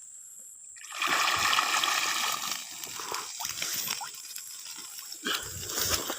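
Water splashing and sloshing. It starts loud about a second in, and a second splash comes near the end.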